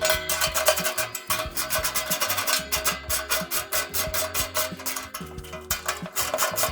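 Ratchet wrench clicking in quick runs as nuts are tightened down on spring-loaded mounting bolts, over background music with a bass line.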